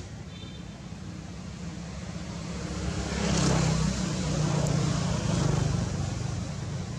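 A motor engine's low, steady drone that swells louder from about three seconds in and eases off again near the end.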